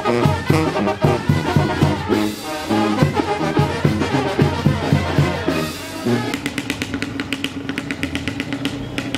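Brass band with tuba and drums playing. About six seconds in, the music drops back and a motor vehicle engine is heard running with a quick, even pulsing.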